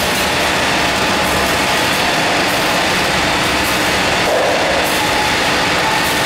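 Continuous nut fryer running, its mesh-belt conveyor tipping fried nuts onto stainless steel trays: a steady, even mechanical noise.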